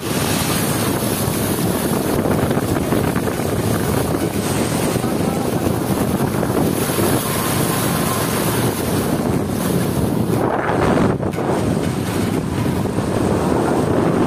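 Motorcycle riding through shallow floodwater: steady wind rush buffeting the microphone, mixed with the hiss of water thrown up by the wheels.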